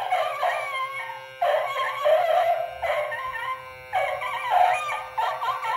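Prototype Gemmy animated Pouncing Mummy Dog Halloween prop playing its recorded dog growls, barks and howls through its small built-in speaker, in a string of short bursts about a second apart. A steady electronic tone sounds underneath throughout.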